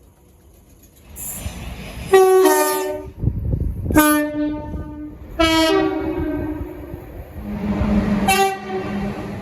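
Multi-note train horn sounding four separate blasts, each a chord of several notes, over the rumble of the train, which builds from about a second in.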